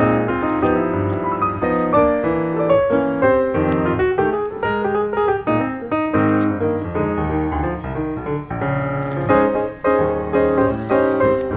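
Background piano music with a fast-moving run of notes.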